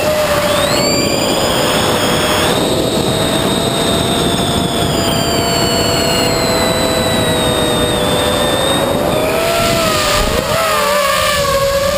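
Brushless electric motors and propellers of an FPV quadcopter, heard from its onboard camera in flight: a steady whine of several close pitches that drift apart and together as the throttle changes, over a rushing hiss. The pitches waver near the end as it manoeuvres.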